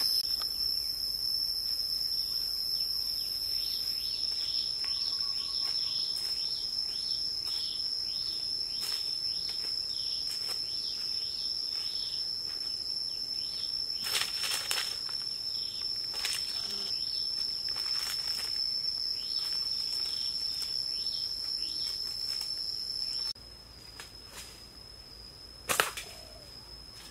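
Insects drone in a steady high-pitched whine while footsteps crunch on dry leaf litter. The drone stops suddenly near the end, and a single sharp snap follows.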